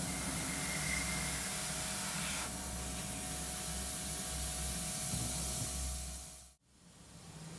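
Airbrush spraying acrylic paint: a steady hiss of air and paint over a low, steady hum, easing slightly a couple of seconds in and cutting off abruptly near the end.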